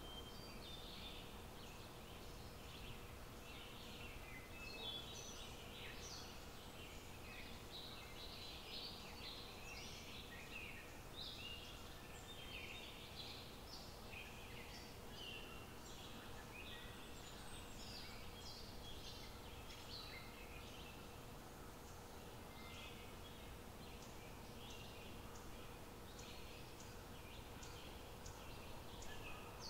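Quiet outdoor ambience: many short, irregular high-pitched chirps over a faint steady hiss.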